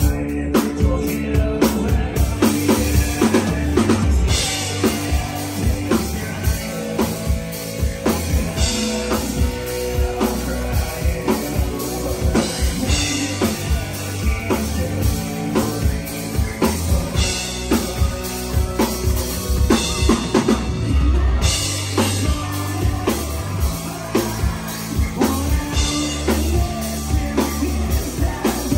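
Live band playing loud: a drum kit keeping a steady kick-and-snare beat under bass guitar and electric guitar.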